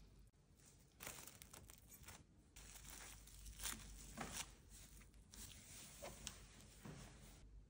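Faint, irregular crinkly rustling of wet wisteria petals handled in a glass bowl of water, with a few sharper crackles in the middle.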